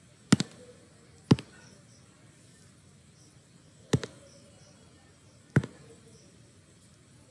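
Four sharp computer mouse clicks, unevenly spaced, the first a quick double-click.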